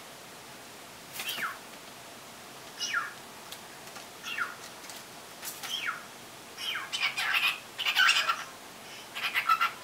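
Cockatiel calls: short whistles that slide down in pitch, about one every second or so, then louder, busier chirping and chatter in the last few seconds. The bird is calling back at recordings of its own voice played from a computer, so some of the calls come from the computer.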